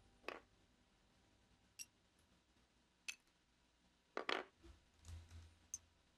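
Near silence broken by about half a dozen faint, sharp clicks and ticks at irregular intervals.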